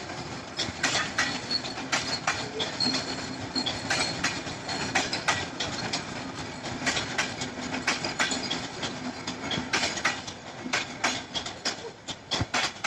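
A train running on rails: many sharp, irregular clicks and knocks from the wheels and cars over a steady rumbling noise and a faint low hum.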